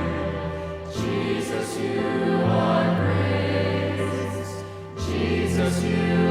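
A choir singing a slow worship song over held chords, the harmony changing about every two seconds.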